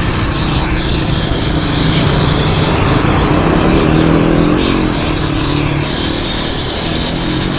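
Road traffic: motor vehicle engines running close by, their pitch rising and falling around the middle, over a steady haze of road and wind noise.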